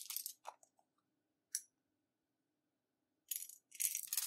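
Small hard plastic clicks and crackles as a plastic lip balm container is twisted open, then a single click a second or so later. Near the end comes a longer rattling clatter as the container is tipped over a plate.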